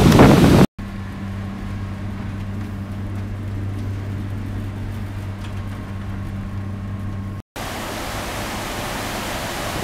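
Wind buffeting the microphone over a rough sea, then, from about a second in, a steady low machinery hum of a ship heard from inside, behind rain-streaked glass. Near the end, wind and sea noise on the open deck return.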